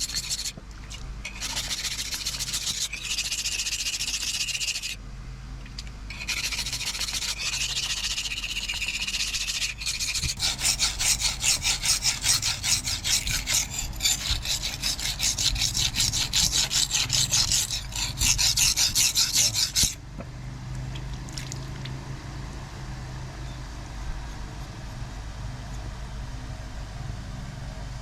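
Hand filing or sanding on a forged knife: a rasping hiss, then loud back-and-forth strokes at about two a second. After these stop, only a quieter low hum remains.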